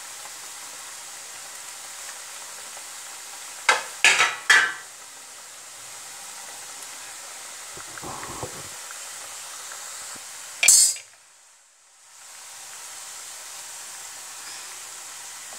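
Gujiyas deep-frying in hot oil in a kadhai, a steady sizzle. A utensil clinks against the pan three times about four seconds in, once more softly around eight seconds, and loudly near eleven seconds, just before the sizzle briefly drops out and comes back.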